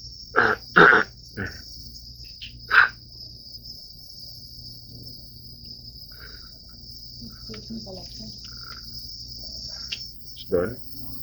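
A man coughing in short dry bursts, the sign of his asthma attack: two loud coughs close together about half a second in, single ones around one and a half and three seconds, and another near the end. A steady high-pitched hiss runs underneath.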